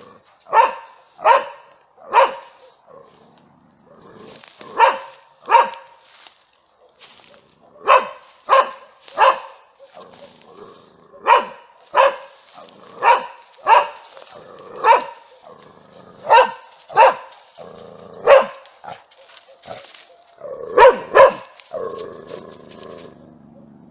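A young Bavarian mountain hound barking: about eighteen sharp barks, mostly in runs of two or three with short pauses between. The dog is giving voice at a wild boar it has tracked down.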